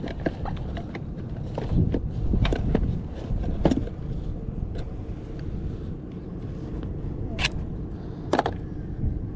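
Wind rumbling on the microphone, with a few sharp knocks and clicks scattered through it.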